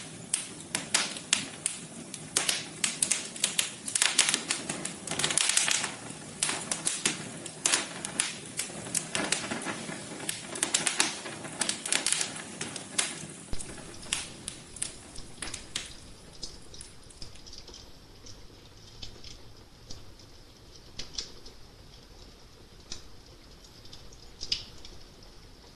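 Wood fire crackling, with dense sharp pops and snaps that thin out to sparser, quieter crackles a little past halfway.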